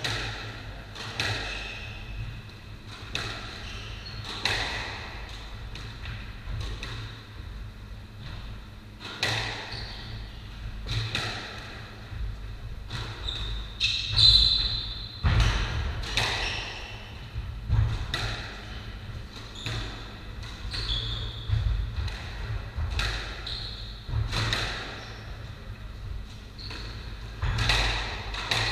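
Squash rally: the ball cracks off the rackets and the court walls about once a second, echoing in the enclosed court, with brief squeaks of court shoes on the wooden floor.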